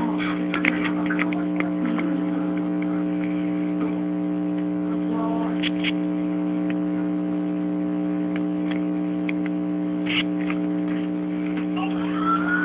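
A steady electrical hum, with a few short clicks and taps scattered through it.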